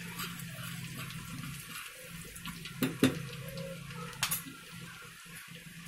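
Oil sizzling in a small pan with garlic, curry leaves and cumin seeds frying in it for a tadka (tempering). A few sharp clicks come about three seconds in and again just after four seconds.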